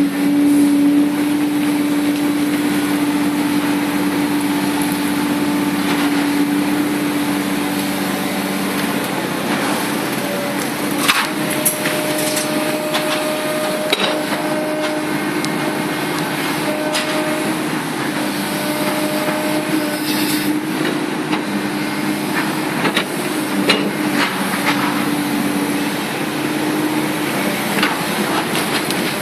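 Komatsu PC300-8 excavator's six-cylinder diesel running steadily while working, with scattered knocks and clanks from the machine at work. A higher whine comes and goes in short stretches through the middle.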